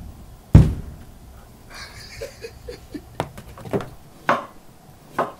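A single heavy thump about half a second in, then scattered light knocks and clicks of household objects being handled in a small room.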